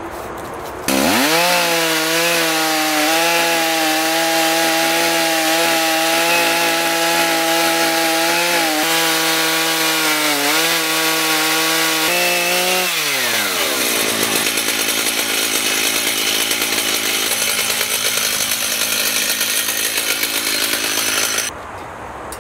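Stihl chainsaw mounted on a chainsaw mill, ripping through an oak stump and running steadily under load, with brief dips in pitch. About twelve seconds in its pitch falls and the sound turns rougher and noisier, until it cuts off suddenly near the end.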